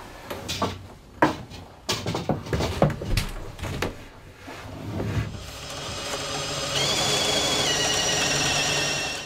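Knocks and clatter of a copper pipe being worked through a hole in a wooden wall. Then, in the second half, a power drill runs steadily, its whine stepping down in pitch partway through.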